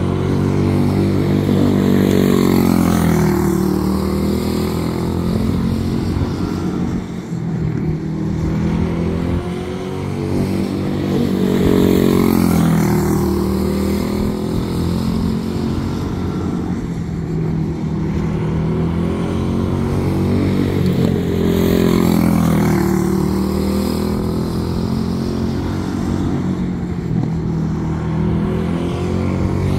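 Quarter midget race car's single-cylinder Briggs & Stratton Animal engine running hard as it laps, its pitch rising and falling in a repeating cycle as it comes round and goes away again.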